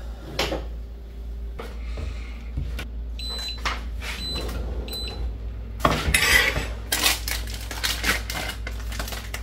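Kitchen clatter of a cupboard being opened and plates, cutlery and a frying pan being handled. A few short, high beeps sound about three to five seconds in as the glass-top hob's touch controls are pressed to switch it on.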